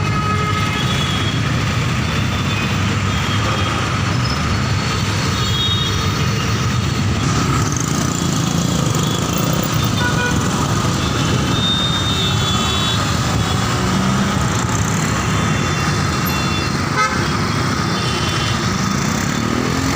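Busy road traffic: a steady rumble of engines and tyres, with car horns honking in short toots again and again. Near the end an engine's pitch rises as a vehicle accelerates.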